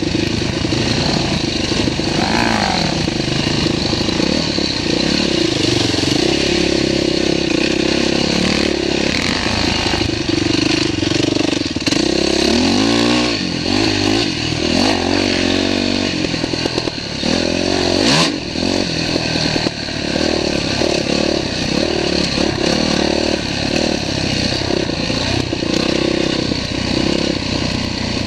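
Dirt bike engine running under load along a rough trail, its revs rising and falling with the throttle several times through the middle, with clatter from riding over rocky ground.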